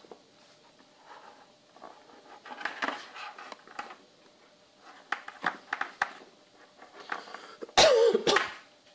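Small clicks and rustles as cables and a small camera are handled on a table, then a loud cough about eight seconds in.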